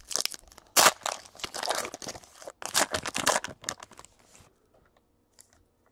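Foil wrapper of a 2017 Panini Chronicles Baseball card pack being torn open and crinkled by hand, a run of crackling rustles that stops about four seconds in.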